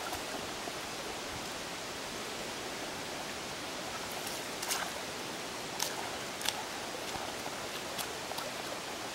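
Shallow rocky creek running, a steady rushing hiss, with a few short splashes from feet wading through the water from about halfway through.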